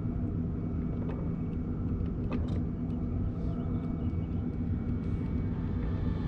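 Steady low rumble with a faint low hum underneath and a few light ticks, with no voice.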